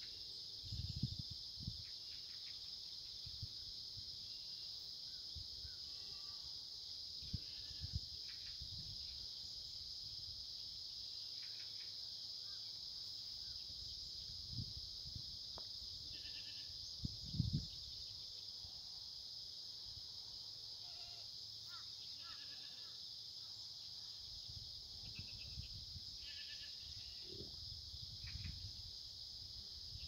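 Steady, high-pitched insect chorus throughout, with black goats bleating faintly now and then, mostly in the second half. A few low thumps on the microphone, the loudest about two-thirds of the way through.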